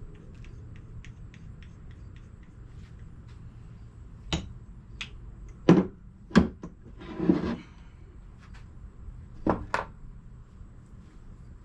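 Metal engine parts being handled during a teardown: faint ticking at first, then a series of sharp metal knocks and clanks with a short scrape in the middle, as pistons, rods and bearing caps are worked loose and set down.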